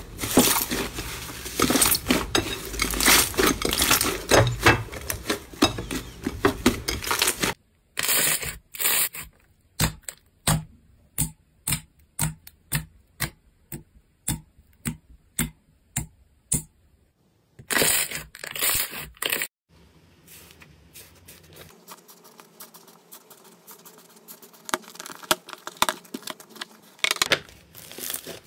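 Slime being handled, with sticky, crackling pops and clicks. It starts dense and continuous, then turns into a run of separate, evenly spaced pops about every half second, like slime being poked or pressed, and ends in quieter crackling.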